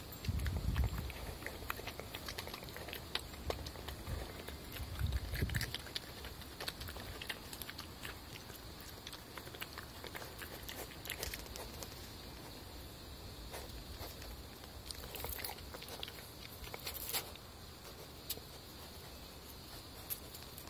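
European badger snuffling and chewing as it forages on paving slabs close to the microphone, with many small scattered clicks. Two heavier low thuds come near the start and about five seconds in.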